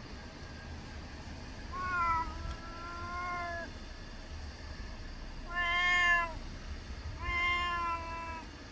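A stray cat meowing three times: a long drawn-out meow about two seconds in, a shorter one a few seconds later, and another long one near the end.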